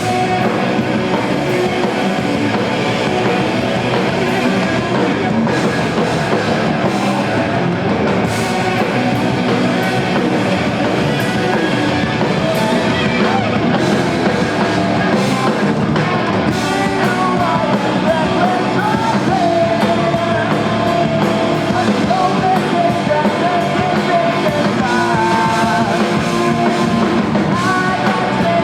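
A rock band playing live and loud, with guitars, drum kit and singing.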